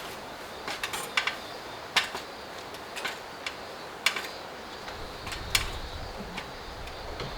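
A series of irregular sharp knocks and clicks, several close together about a second in and single loud ones about two, four and five and a half seconds in, over a steady background hiss with a faint high steady hum.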